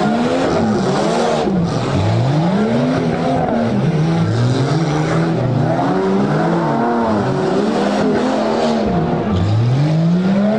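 Competition off-road truck's engine revving up and down over and over, its pitch rising and falling about once a second as the throttle is worked.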